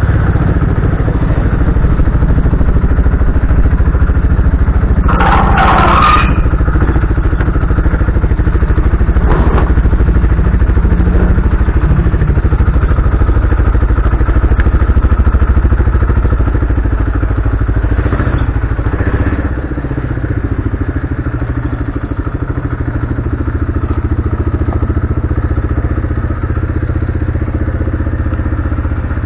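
Kymco Maxxer 300 quad's single-cylinder four-stroke engine running on the move, with a short harsh noise about five seconds in. About two-thirds through, the throttle is let off and the engine settles to a steady idle.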